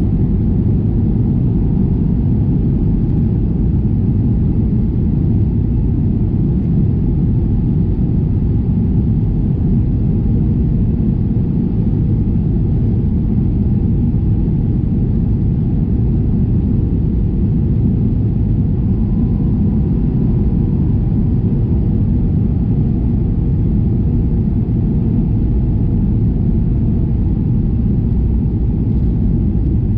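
Steady cabin noise inside a Boeing 737-800 on approach: the rumble of its CFM56-7B engines and airflow over the fuselage, heard from a window seat beside the wing.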